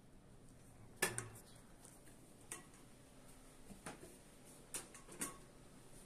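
A few scattered sharp clicks and knocks in a quiet room, the loudest about a second in, then four or five fainter ones over the next few seconds.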